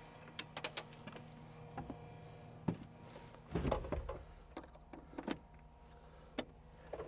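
Scattered sharp clicks and knocks, with a heavier low thump about three and a half seconds in, over a faint steady low hum.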